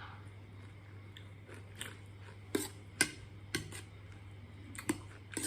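A person chewing and biting crunchy food close to the microphone: a handful of sharp, short crunches spread unevenly through the second half.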